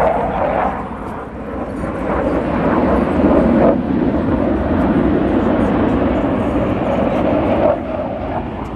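Blue Angels F/A-18 Super Hornet jets flying past with a loud, rushing jet-engine noise that builds to its loudest a few seconds in and eases slightly near the end.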